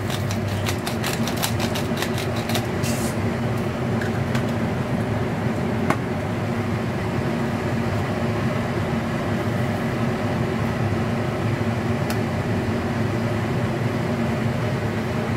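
A steady machine hum, like a fan or other appliance motor running. A quick run of light clicks comes in the first three seconds, and a single click about six seconds in.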